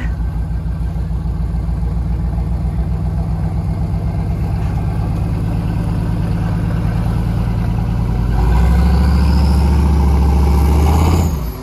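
Square-body Chevy K5 Blazer's engine running steadily, then revving harder under load for about three seconds as it pulls a stuck Jeep Cherokee out of the snow on a tow rope, before dropping back sharply.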